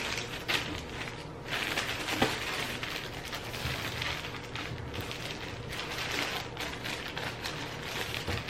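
Plastic packaging crinkling and rustling as clothes are handled and unwrapped, with a sharper crackle about two seconds in.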